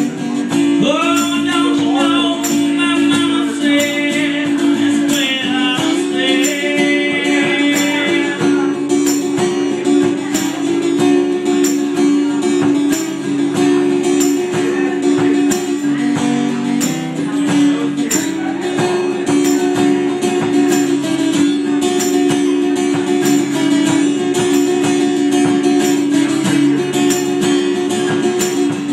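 Two acoustic guitars played live, strumming chords to a steady beat. A voice sings over them for roughly the first eight seconds, then the guitars carry on alone.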